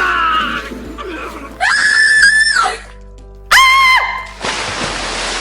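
Two loud, high-pitched screams over background music: the first held for about a second, the second shorter. After them comes an even hiss.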